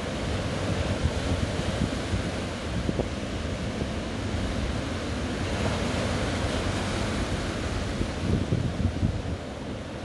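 Strong surf breaking and washing up onto a sand beach, a steady rushing wash, with wind buffeting the microphone in gusts, most strongly near the end.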